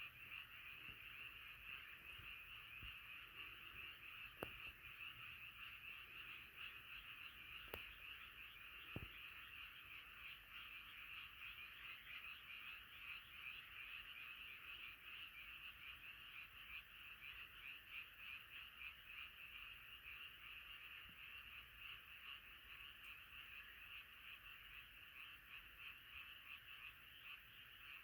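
A faint, dense chorus of many frogs calling together, a steady mass of rapid, overlapping croaks. A few faint clicks occur in the first ten seconds.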